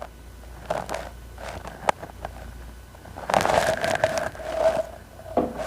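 Rustling and scraping from things being handled, with scattered light clicks and one sharp click about two seconds in. A louder stretch of scraping follows over the second half.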